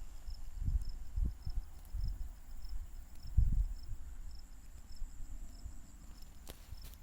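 A small bird calling a long, rapid run of short, high, thin chirps, several a second. Irregular low rumbling thumps, the loudest about halfway through, sound under it.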